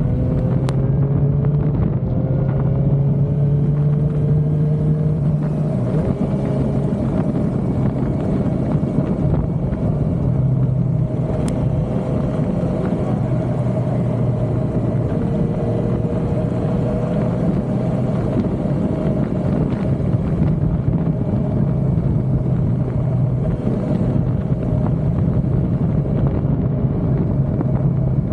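Suzuki motorcycle engine running at road speed, its pitch rising a few times as it accelerates, over steady wind and road noise.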